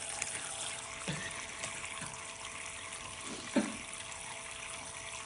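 Steady running water, like a stream pouring from a tap, with two short splashes: one about a second in and a louder one about three and a half seconds in.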